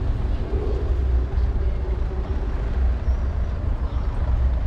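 Steady low rumble of wind buffeting the microphone on a moving bicycle, mixed with tyres rolling over stone paving.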